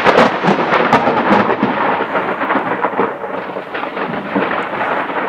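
A long, loud roll of thunder in a thunderstorm, with many small crackles through it; it eases off a little in the middle.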